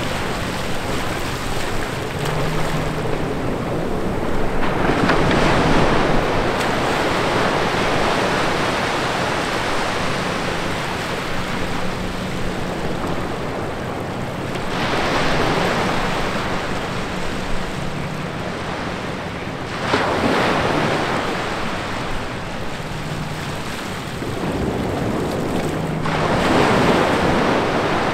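Small ocean waves breaking and washing up the sand between rocks, the wash swelling four times as each wave comes in.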